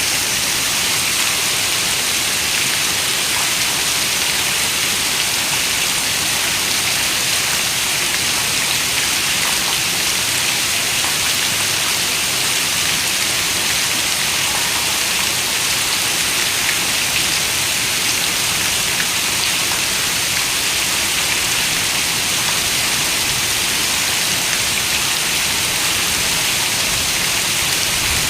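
Steady rain: an even, unbroken hiss of many drops, with faint ticks of single drops.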